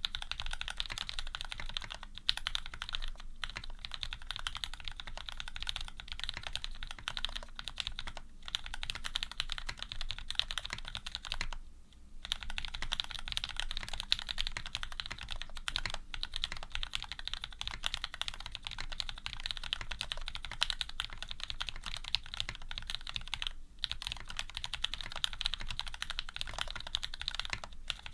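Continuous fast typing on a custom Serratus mechanical keyboard with lubed Cherry Retooled Black linear switches, an aluminium plate and GMK keycaps: a dense stream of key clacks, with a short pause about twelve seconds in.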